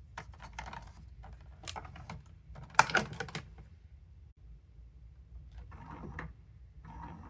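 Coffee maker being handled: short runs of clicking and clattering plastic, with one sharp knock about three seconds in.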